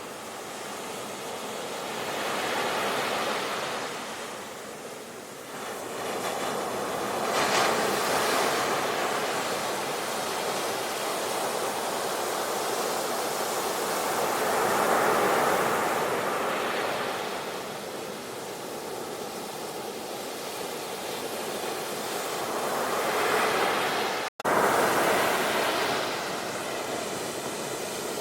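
Sea waves breaking and washing up the shore, the surf swelling and easing every several seconds. There is a split-second gap in the sound about 24 seconds in.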